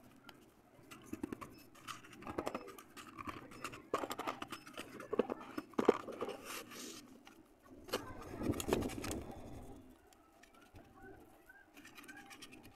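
Wet red clay (multani mitti) squishing and slapping as hands pat, knead and press it in a steel plate, in irregular sticky, crackling bursts that are loudest through the middle.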